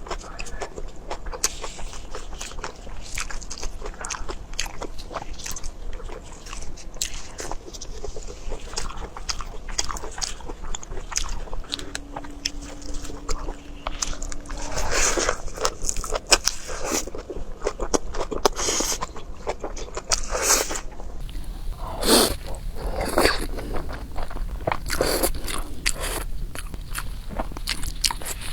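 A person chewing and biting food close to the microphone: a steady run of small wet clicks and crunches, with a few louder bites in the second half.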